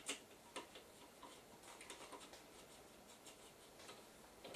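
Faint clicks and scrapes of a screwdriver working the screws of a TV power supply board: scattered light ticks, with a sharper click just after the start and another near the end.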